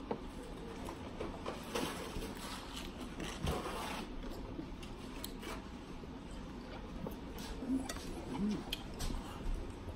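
Chewing and small mouth noises of people eating a meal, with scattered soft clicks and light sounds from plates and utensils.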